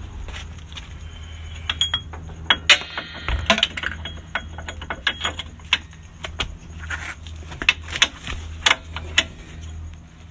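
Metal hand tools clinking and clattering against metal car parts: a string of sharp, irregular metallic clicks, some ringing briefly, over a steady low hum.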